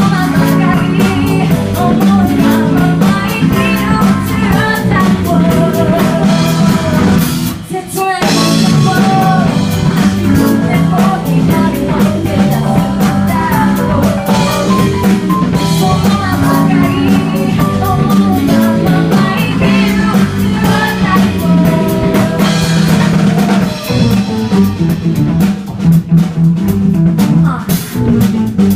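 Live band music: drum kit and guitar over a steady bass line, with a melody line on top and a brief drop in the playing about eight seconds in.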